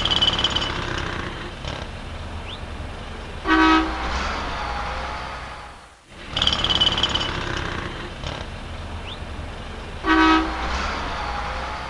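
City street traffic: a steady low rumble of passing vehicles, with a short car-horn honk about a third of the way in and again near the end, and a short high-pitched tone at the start and again about halfway. The same few-second stretch of street sound plays twice.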